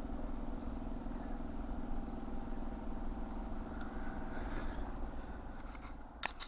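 Diesel air heater running after switch-on: a steady whirring hum with a low rumble underneath. A couple of sharp clicks come near the end.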